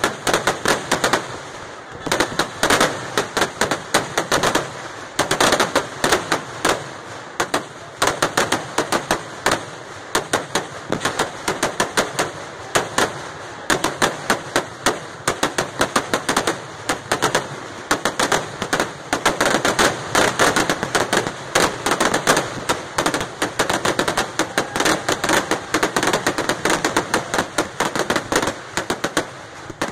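Kerala temple-festival fireworks (vedikettu) going off in a dense, unbroken barrage of loud firecracker bangs, many a second.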